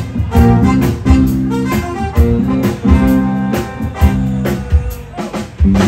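Live band, with drums, keyboard and guitar, playing the instrumental intro of an upbeat song with a steady beat, before the vocals come in.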